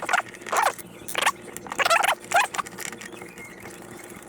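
Hand tool turning out the fasteners on a plastic battery-box handle: about five short mechanical strokes, roughly half a second apart, that die away after a couple of seconds.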